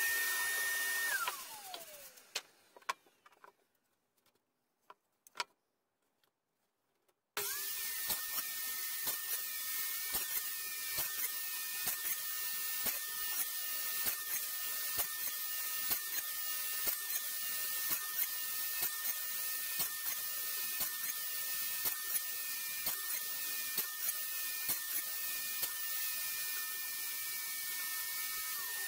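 Table saw motor running with a steady whine, switched off about a second in so the pitch falls as the blade spins down, with a few clicks in the quiet. Switched on again about seven seconds in, it runs on with many short repeated peaks as the blade bites into softwood, nibbling out half-lap joints pass by pass.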